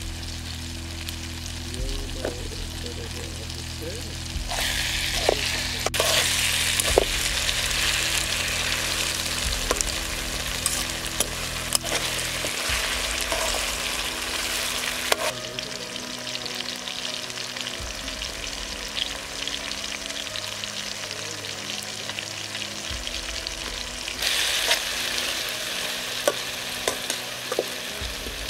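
Brinjal curry (eggplant, tomato and green chilli pieces) sizzling in a metal kadai while it is stirred with a long spoon that scrapes and taps against the pan. The sizzling swells about four seconds in and again near the end.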